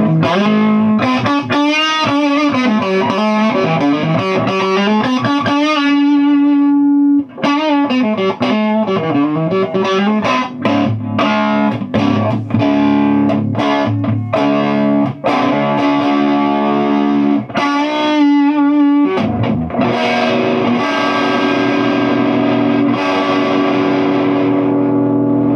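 Electric guitar played through a hand-built Fender 5F1 Tweed Champ valve amplifier with a 6V6 output valve, turned up high and overdriven: bent single-note lead lines first, then strummed and held distorted chords from about three-quarters of the way in. The breakup at this volume is what the builder tentatively calls blocking distortion.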